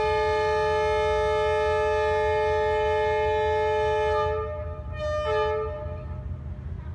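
Horn of a D19E diesel-electric locomotive sounding one long blast of about four seconds, then a short blast a second later, over a steady low rumble.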